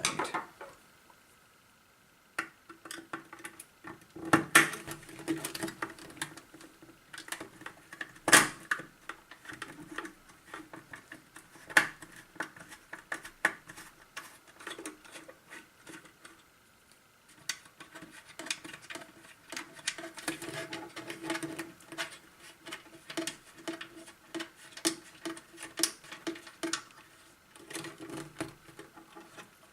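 Irregular clicks, taps and scrapes of small plastic and metal parts being handled while screws are taken out of the disco light's housing, with a couple of sharper knocks and an intermittent low hum.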